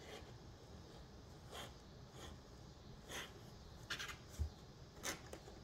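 A cat's claws scratching and rubbing against the inside of a cardboard box in a handful of short, faint strokes, with a soft low thump about four seconds in.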